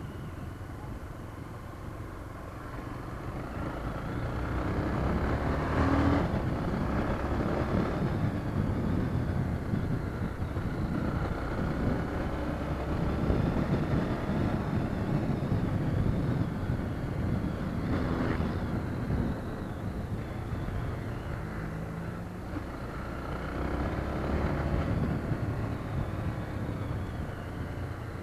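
Honda CB300 motorcycle's single-cylinder engine running while being ridden, rising and falling in level in stretches, with road noise.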